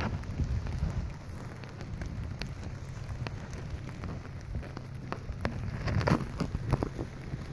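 Rain falling on a tent's fabric as many scattered drop hits over a steady low rumble of surf, with a cluster of louder hits about six seconds in.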